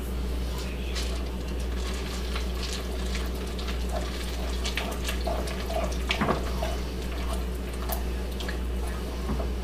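A wooden spoon stirring a thick mix of condensed milk and dark chocolate chips in a cast-iron pot, with irregular scrapes and knocks against the pot, over a steady low hum.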